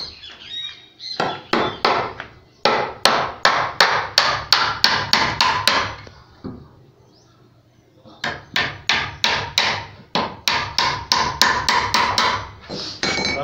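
Hammer nailing wooden boards of a door frame: two runs of quick, sharp blows, about four a second, with a pause of about two seconds in the middle.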